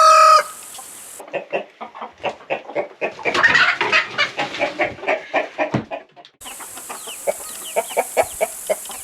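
Chickens clucking in short, irregular calls, with a louder, denser stretch of calls around three to four seconds in.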